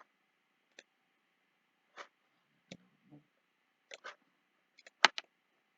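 Computer mouse clicking: several short, irregular single clicks, the sharpest about five seconds in.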